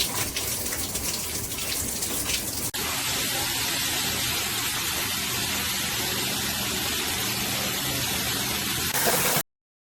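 Water spraying from an SR SUN RISE filtered rain shower head. At first it splashes unevenly, then after an abrupt cut about three seconds in it runs as a steady, even spray. The sound cuts off suddenly near the end.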